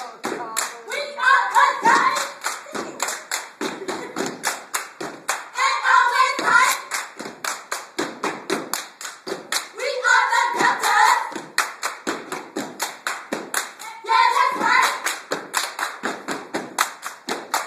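A step team stepping in unison: hand claps and foot stomps on a hard floor in a fast, steady rhythm of about four beats a second. About every four seconds the group calls out together over the beat.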